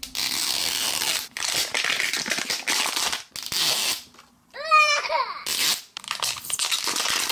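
Packaging of a mystery box being torn and crinkled open, in irregular stretches of rustling with short pauses. About five seconds in there is a brief high-pitched sound.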